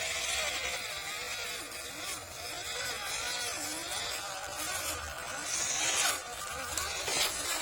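Small electric motor of an MN99 D90 scale RC off-road car whining as it drives, its pitch wavering up and down with the throttle.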